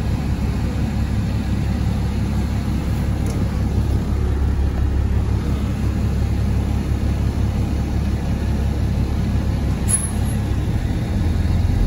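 GolAZ-AKA-5225 city bus running, a steady low engine drone with a couple of faint clicks; the engine note shifts slightly near the end.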